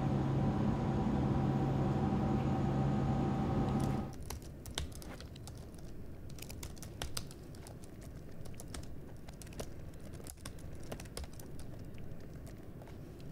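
A steady low hum with a few held tones, the running noise inside a train carriage, cuts off about four seconds in. Then comes laptop keyboard typing: scattered, irregular key clicks.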